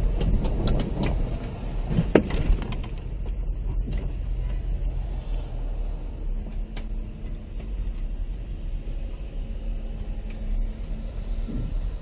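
Motor vehicle noise: a steady low rumble, with a cluster of sharp knocks and clicks in the first three seconds.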